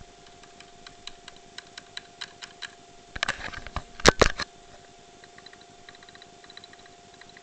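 Computer keyboard being typed on: single keystroke clicks, then a quick flurry of keys about three seconds in that ends in two hard, loud key slaps, then only a few light taps. A faint steady hum runs underneath.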